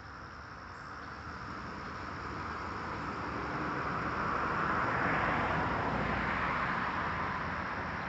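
A car passing by: road and tyre noise swells to a peak about five seconds in, then fades.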